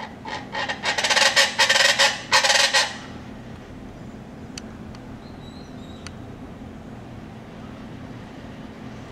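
Chachalaca calling: a loud, harsh, rapidly repeated run of raucous notes lasting about three seconds, then stopping abruptly. A low steady hum continues underneath.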